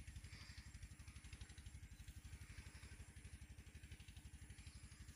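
A faint, steady engine putter of about ten low beats a second, like a small motor running at constant speed.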